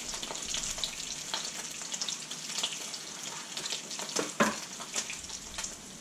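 Silver perch pan-frying in oil, a steady sizzle full of small crackling pops, with one sharper crack about four and a half seconds in.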